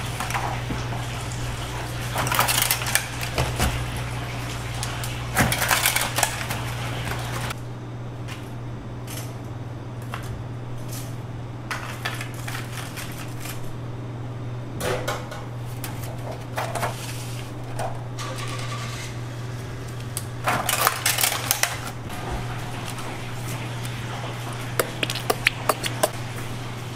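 Kitchen clatter of metal tongs and plastic bento trays being handled as fried chicken is packed, in several bursts, with a quick run of clicks near the end, over a steady low hum.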